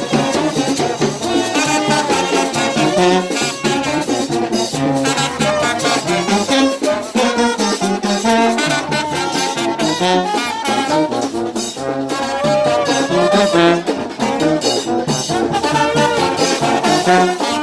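Brass band of several trombones and a sousaphone playing live together, loud and close, with sharp percussion hits keeping the beat.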